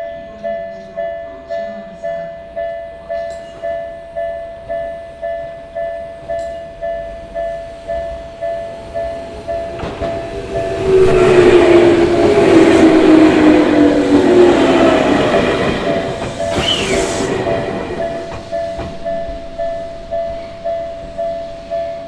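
Level-crossing warning bell ringing in a steady ding-ding of just under two strokes a second, as a Tokyu Ikegami Line train passes about ten seconds in. The train brings a loud rush of wheels and motors with a falling whine and a brief high squeal, then the bell is heard alone again.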